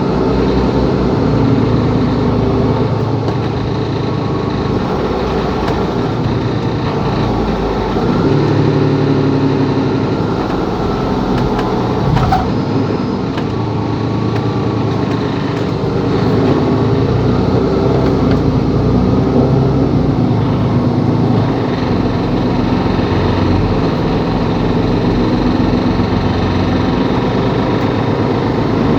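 Mercedes-Benz Capacity L articulated city bus running on the road, its diesel engine speed rising and falling several times, with a single sharp click about twelve seconds in.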